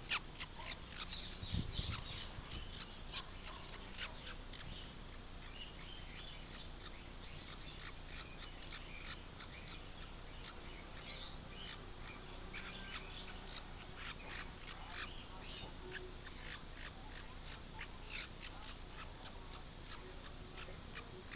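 A baby parrot chick giving short, high, raspy cheeps over and over while a kitten paws at it. There is a low thump about two seconds in.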